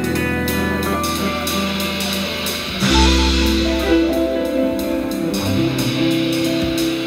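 Live jazz band playing an instrumental passage: electric guitar and electric bass over a drum kit, with cymbal strokes keeping time. About three seconds in, the bass moves to a new, stronger low note.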